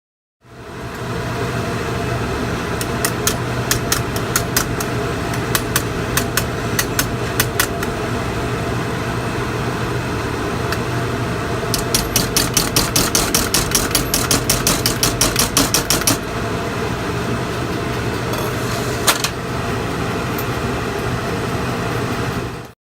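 Steady hum and hiss of a TIG welding setup, with scattered sharp clicks and, midway, a fast run of about five clicks a second, then one louder click near the end.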